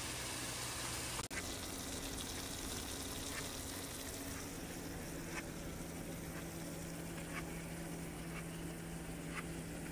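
Seasoned chicken pieces frying in a skillet: a steady sizzling hiss over a low hum, with a faint tick about every two seconds.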